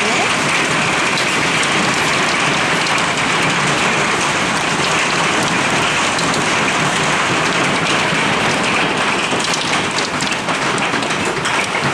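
Hailstones, mostly golf-ball size, and heavy rain coming down hard: a dense, steady hiss of impacts, with sharper single strikes standing out near the end.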